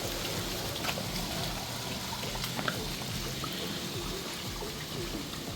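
Floodwater trickling and pouring steadily, with scattered small drips and splashes; the water is sewage-tainted.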